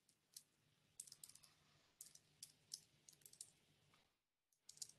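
Faint computer keyboard keystrokes as text is typed, coming in short runs of a few clicks at a time with brief pauses between them.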